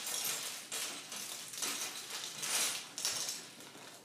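Lego bricks and their plastic bags being handled during a build: a string of short rustling, crackling bursts with light clicks of small plastic pieces.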